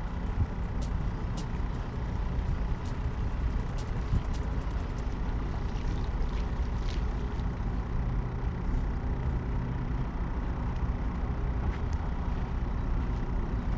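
Spinning fishing reel being cranked, a rapid, light, regular clicking that speeds up after a few seconds and stops about five seconds in, as a fish is reeled in. A steady low rumble runs underneath.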